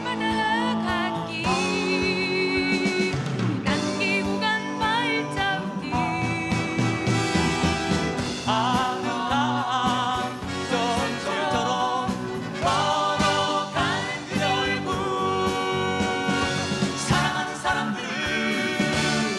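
A live Korean pop-folk song: a man's voice sings, then a woman's about halfway through, and the voices join together near the end, over acoustic guitar and a backing band.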